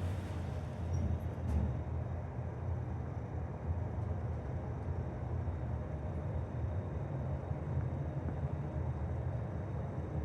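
Toshiba passenger-and-freight elevator running, a steady low rumble and hum.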